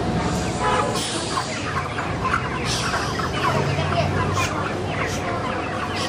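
A crowded flock of white broiler chickens clucking and peeping, many short calls overlapping into a steady din.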